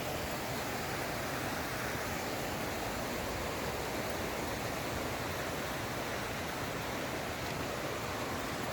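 Rushing creek water flowing alongside the trail: a steady, even rush that does not change.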